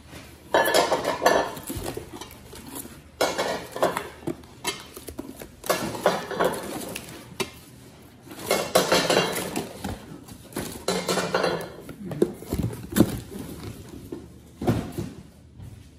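Villeroy & Boch porcelain Christmas soup plates clinking against one another as they are lifted out of their box and stacked, with cardboard packing rustling in between. The sound comes in irregular bursts and dies down near the end.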